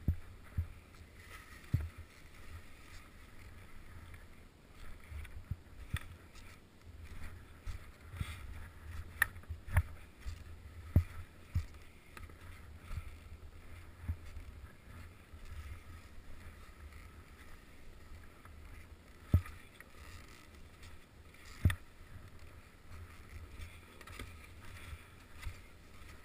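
Skis sliding and turning through snow, heard through a body-worn GoPro, with a steady low rumble and scattered sharp knocks, the loudest about eleven seconds in and twice more near the end.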